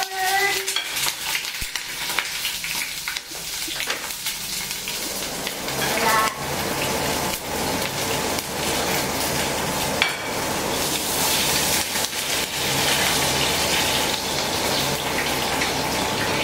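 Food frying in hot oil in a stainless steel frying pan on a gas hob: a steady sizzle, with scattered sharp clicks of a utensil against the pan.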